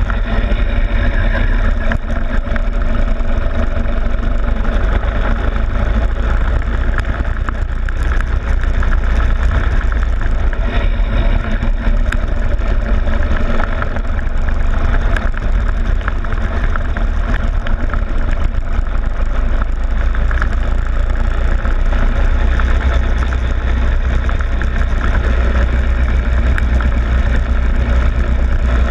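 Go-kart engine running continuously as the kart is driven around the track, picked up by a camera on the kart's loosely fixed front fairing, so a heavy low rumble of vibration and wind sits under the engine note. The rumble grows stronger near the end.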